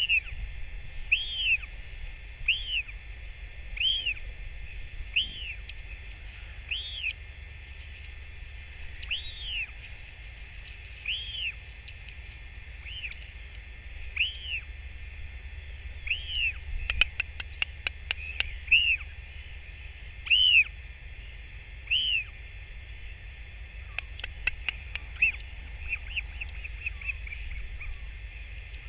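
A bird calling over and over: short high notes, each rising then falling, about every second and a half. Bursts of rapid clicks come around the middle and again later. A steady low wind rumble runs underneath.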